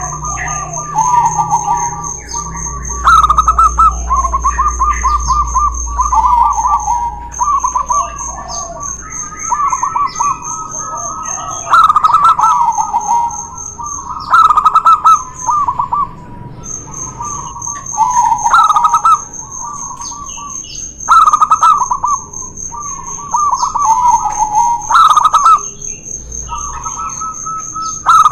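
Zebra doves (perkutut) cooing in repeated rolling, bubbling phrases, two birds overlapping and answering each other in a singing contest. A steady high-pitched whine runs behind them and breaks off briefly twice.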